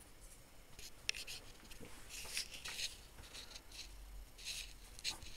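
Faint rustling and scraping handling noise, with a sharp click about a second in and scattered short hissy scrapes after.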